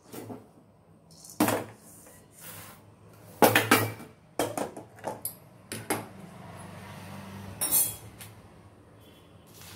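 Aluminium kadai knocking and scraping as roasted chana dal is tipped out of it and the empty pan is set back on the gas stove: several separate clatters, the loudest about three and a half seconds in.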